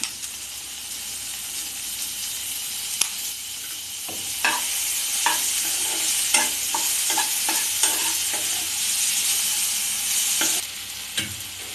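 Onion-tomato masala sizzling in oil in a kadai while a spatula stirs in ginger-garlic paste, clicking and scraping against the pan. The sizzle grows louder about four seconds in, with a quick run of spatula clicks, and eases near the end.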